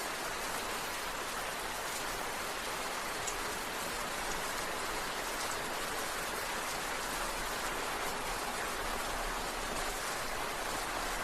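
Steady rain falling, an even hiss of rain with scattered individual drop ticks.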